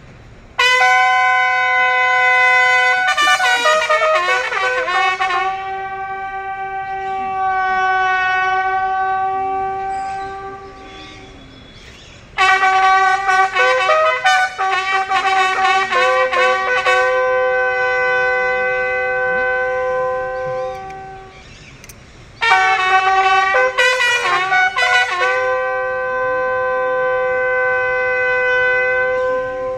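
Bugle call in three phrases. Each opens with a few quick notes and ends in a long held note.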